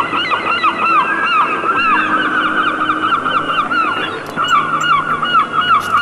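Many birds calling at once: a dense stream of short, overlapping calls that bend down in pitch, several a second, with no break.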